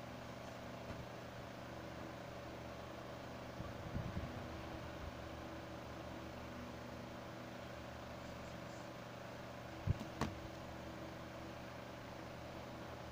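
A steady low hum, with a cluster of soft thumps about four seconds in and two sharp knocks close together near ten seconds in.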